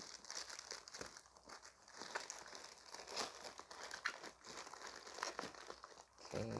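Grey plastic courier mailer bag crinkling as a hand pulls and tears at it, in irregular crackles.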